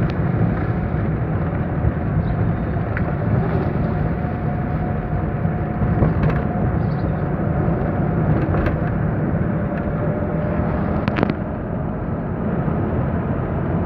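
Steady engine and road noise heard from inside a moving car's cabin, with a few brief clicks.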